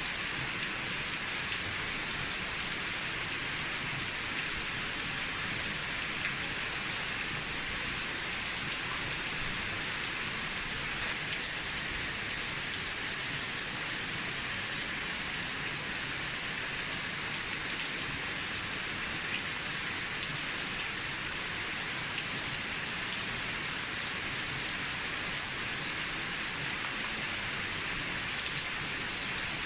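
Steady rain falling on an old mossy rooftop, an even hiss of many small drops.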